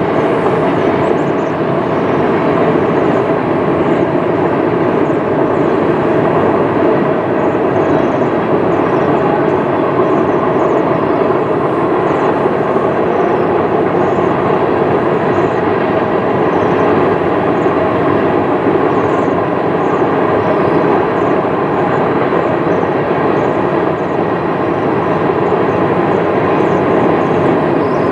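Freight train cars rolling past on the rails: a steady, even rumble of steel wheels, with no breaks or changes.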